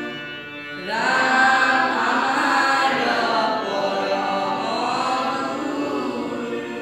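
Devotional chant-like singing with musical accompaniment. A new, louder sung phrase comes in about a second in, after a brief dip.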